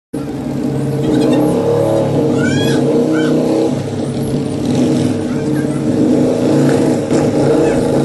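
Motorcycle engine running steadily at low revs, starting abruptly at the very beginning.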